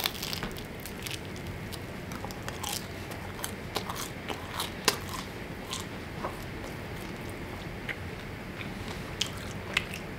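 Close-up chewing of crusty sourdough bread topped with sardines: a bite at the start, then irregular crisp crunches and crackles of the crust as it is chewed, the loudest about five seconds in.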